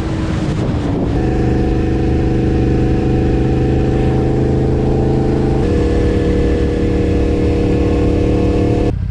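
Yamaha MT-10's crossplane inline-four with an Akrapovič exhaust running at steady high revs, with wind rush. Its note shifts once a bit over halfway through, then cuts off suddenly near the end.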